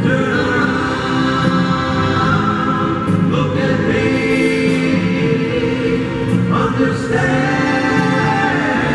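Live band music: male singers singing long held notes in harmony, backed by electric bass and drums.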